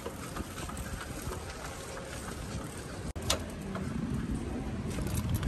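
Road rumble and wind noise from riding in an open vehicle, with scattered light rattles and clicks. The sound cuts out for an instant about three seconds in, then a sharp click follows, and the low rumble grows stronger near the end.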